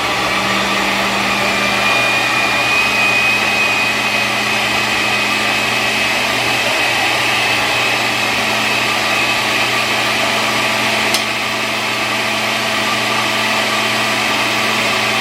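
A loud, steady motor drone with a constant low hum and a faint high whine through much of it, and one short click about eleven seconds in.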